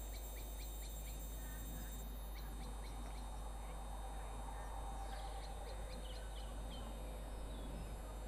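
Small birds chirping faintly: runs of short, high notes, a busy run in the first few seconds and another about five seconds in, over a steady low background rush.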